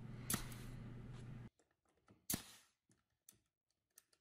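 Cordless finish nailer firing nails through a plywood top into the bracket below: a sharp shot about a third of a second in and a louder one about two seconds in, with a few faint clicks after.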